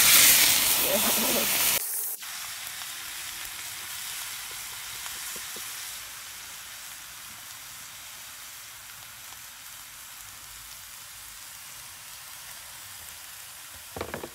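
Loud sizzling as liquid is poured from a white jug into a hot steel wok of chicken feet, onion and garlic, cut off abruptly about two seconds in. Then a steady, quieter sizzle of the chicken feet cooking in the wok, with a few light clicks near the end.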